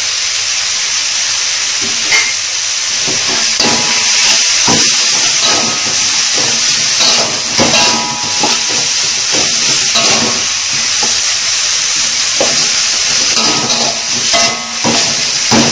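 Sliced onions and spice paste sizzling in hot oil in a wok, with a steady hiss. From about two seconds in, a metal spatula stirs the food, scraping and clinking against the wok.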